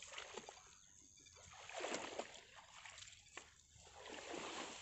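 Faint splashing and sloshing of shallow pond water, swelling twice: about two seconds in and again near the end.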